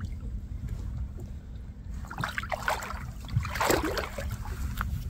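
Steady low rumble of wind on the microphone out on open water, with a short burst of noise from about two to four seconds in.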